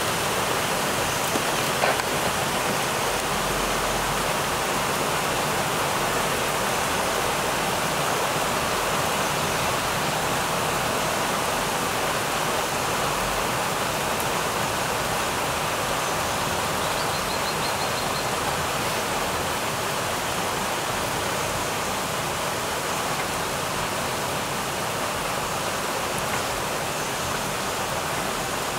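Heavy downpour pouring onto a flooded courtyard and parked cars: a steady, even hiss of rain that holds the same level throughout.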